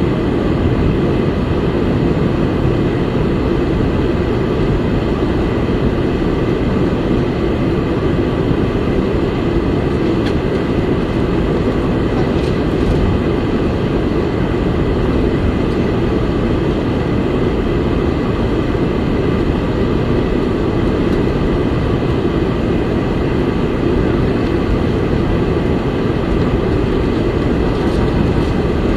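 Steady low rumble inside the cabin of a Boeing 747-400 on the ground before take-off, its four engines running at low thrust.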